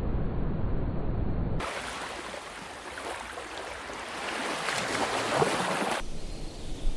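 Outdoor noise of rushing water and wind, changing abruptly about a second and a half in from a low rumble to a bright crackling hiss, and again near the end to a duller hiss.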